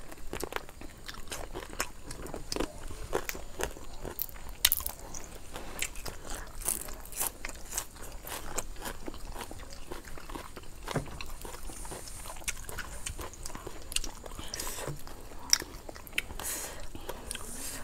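Close-up chewing of Lao-style green papaya salad: wet chewing broken by many short, sharp crunches.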